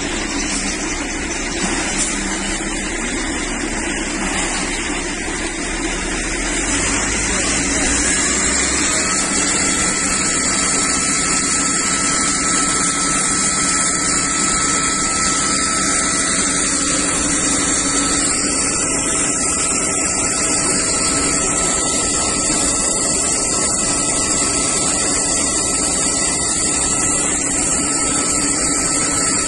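Fire hose spraying water onto a burning speedboat: a steady, loud hiss and rush that swells a few seconds in. About nine seconds in, a thin steady whine joins it.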